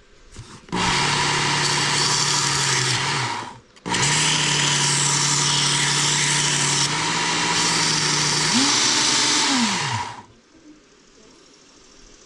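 Belt grinder with a coarse, roughly 100-grit belt running, grinding down the steel of a wire-cutter insert, in two runs. The first lasts about two and a half seconds; the second lasts about six. Each stops abruptly, and the pitch rises and drops at the end of the second run.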